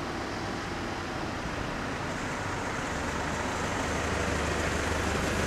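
Road traffic noise with a low engine rumble that comes in about three seconds in and grows slowly louder.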